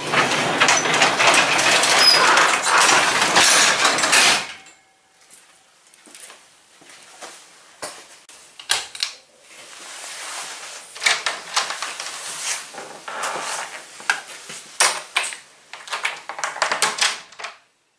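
A sectional garage door pulled down by hand, rolling down with a loud rattle for about four seconds and stopping abruptly. Scattered knocks and clicks follow.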